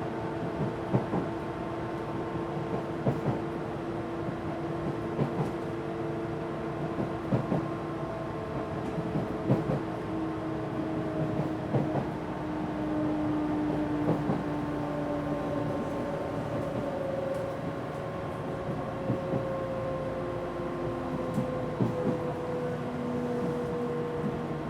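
Odakyu 1000 series electric train running: the Mitsubishi GTO-VVVF traction motors give several steady tones that slowly fall in pitch as the train slows. The wheels click over rail joints about every two seconds, over the hum of the car's air conditioning.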